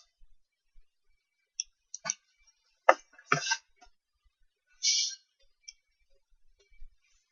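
Scattered computer mouse and keyboard clicks, about half a dozen short separate clicks, with a brief hiss about five seconds in.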